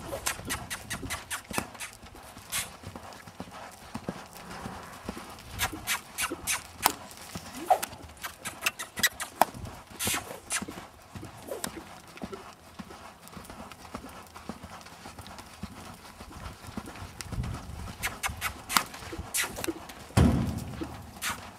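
Hoofbeats of a yearling Quarter Horse trotting and loping on sand footing: many short, sharp strikes in uneven clusters. A louder low rumble comes near the end.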